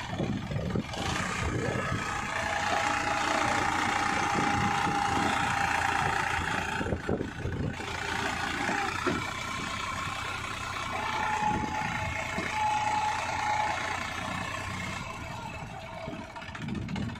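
Small diesel tractor engine running hard under load as the tractor tries to drive out of deep mud. It builds up about two seconds in, with a steady whine over it, eases briefly, swells again, and falls off near the end.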